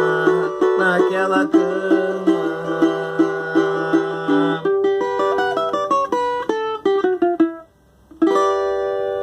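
A solo plucked string instrument plays the instrumental ending of a pagode song. Evenly repeated strummed chords give way about halfway through to a descending run of single notes, then a brief break, and a final chord left ringing.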